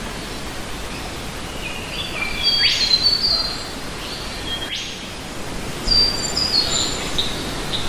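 Birds singing two bursts of short whistled notes, stepping down in pitch with a few quick upward sweeps, over a steady rush of falling water from a small forest waterfall.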